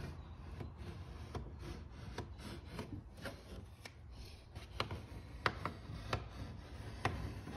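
Hands handling strips of tape inside a wooden boat hull: rubbing and rustling with several sharp clicks, the loudest in the second half, over a low steady hum.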